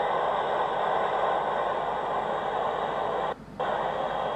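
Steady hiss of static from the space station's ham radio receiver. It cuts out briefly a little over three seconds in.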